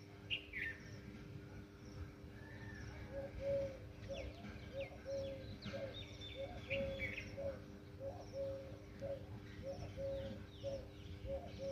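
Birds calling: one repeats a short low note about one and a half times a second, while others give higher chirps and whistles. A steady low hum runs underneath.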